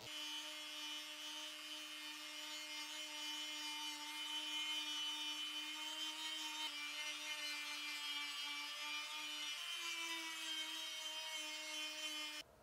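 A power tool's motor running steadily while it works wood, a hum with a rubbing, scraping noise over it; the pitch shifts slightly about ten seconds in, and the sound cuts off abruptly near the end.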